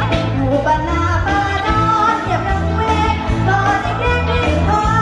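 A live pop band playing, with a woman singing the melody over a steady bass line and drums.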